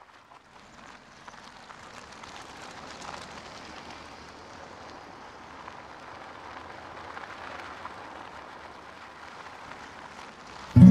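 A steady hiss of noise fades in over the first couple of seconds and holds evenly. Loud music with a strummed guitar starts right at the end.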